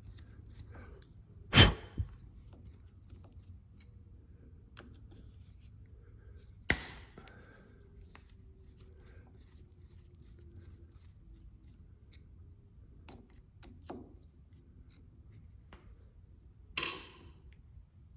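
Occasional sharp clicks and knocks of hand work on an ATV's handlebar brake fluid reservoirs as the covers are taken off: one louder knock early on, a sharp click midway and a short rattle near the end, over a faint low background.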